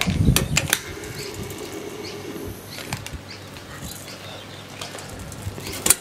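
Bee smoker's bellows squeezed near the start, pushing a whoosh of air through the smouldering leaves, with a few light clicks from the metal can. A fainter steady hiss follows.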